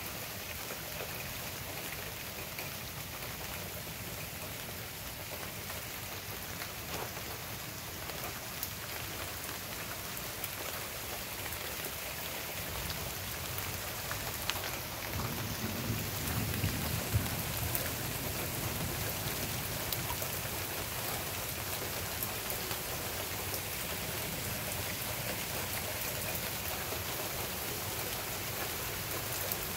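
Steady rain falling, with a low rumble of thunder that builds about halfway through and then fades.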